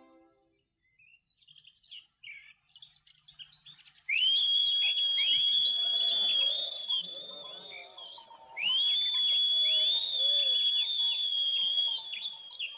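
Birds chirping, then two long, high, steady whistles, each about three seconds, the first about four seconds in and the second about eight and a half seconds in.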